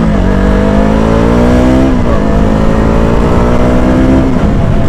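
KTM motorcycle engine under way, rising in pitch for about two seconds, dropping at a gear change, then pulling steadily again before easing off near the end, with a low rumble underneath.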